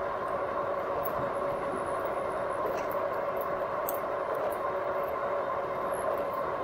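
Riding noise of a RadMini electric fat-tyre bike cruising at speed on pavement. Its geared hub motor and tyres make a steady drone, holding two even tones over a rushing noise.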